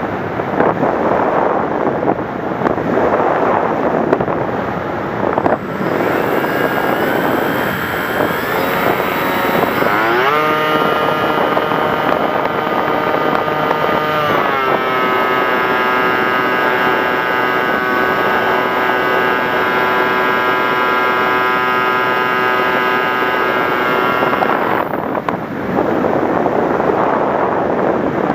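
Wind buffeting the microphone, and over it a Raptor model helicopter's engine. The engine comes in about six seconds in, rises in pitch around ten seconds, then drops to a lower steady note a few seconds later and holds it. It stops a few seconds before the end.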